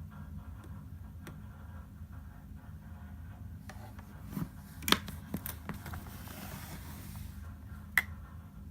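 Hermes Baby portable typewriter being handled: a quick run of sharp mechanical clicks, then a short sliding scrape, and one more sharp click near the end.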